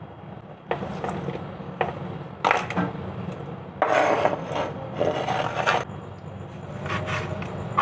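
Kitchen utensil scraping and rubbing during food preparation: a few short scrapes, then a longer one of about two seconds, then another short scrape near the end.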